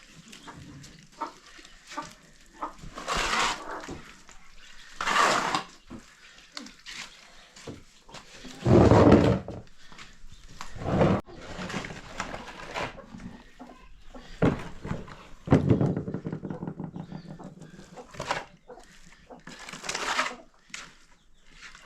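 Livestock bleating in a series of separate calls, some short and some longer, with one longer, wavering call about three quarters of the way through.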